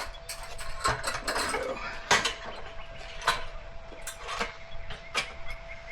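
Metal tools clinking and knocking as they are handled and set down, about five separate sharp strikes, over a faint steady hum.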